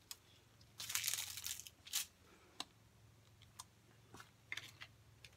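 Rustling and handling noises, as someone moves about and reaches for the recording phone. There is a burst of rustling about a second in, a sharp click near two seconds, and a few light clicks and rustles near the end.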